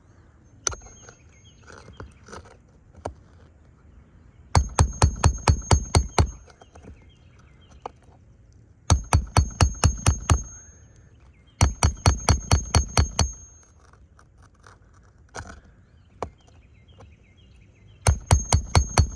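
A tool at work during a roof shingle repair: four runs of rapid, evenly spaced knocks, about six a second, each run lasting under two seconds and carrying a high ring, with quieter scraping between the runs.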